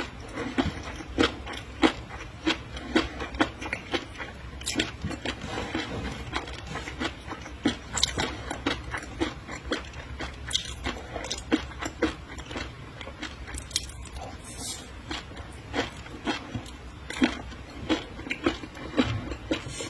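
Close-miked eating of seafood: wet chewing and mouth clicks several times a second, with a few sharper bites.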